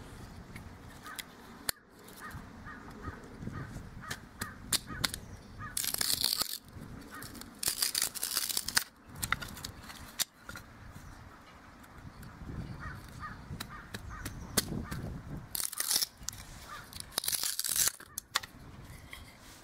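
Knife splitting a dry yucca stalk lengthwise and shaving it flat: scattered sharp clicks and several short bursts of crackling, tearing fibre.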